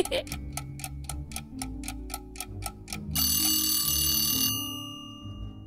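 Wind-up kitchen timer ticking fast, then its bell ringing for about a second and a half before fading: the timer has run out.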